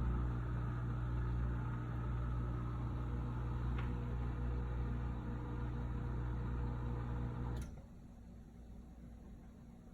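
Samsung DW80K7050 dishwasher's motor running with a steady low hum, then cutting off with a click about three-quarters of the way through.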